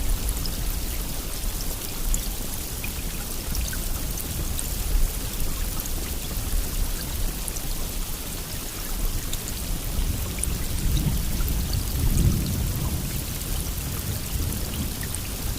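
Steady rain, an even hiss with scattered individual drops ticking. A low rumble swells up about eleven to twelve seconds in, then eases.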